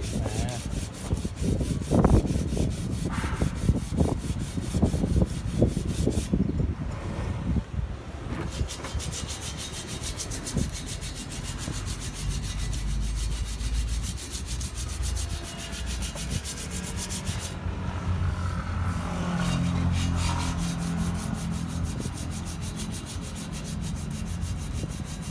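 Hand sanding of an aluminum car wheel rim with 80-grit sandpaper wrapped on a block: continuous scratchy rubbing strokes, pausing briefly twice.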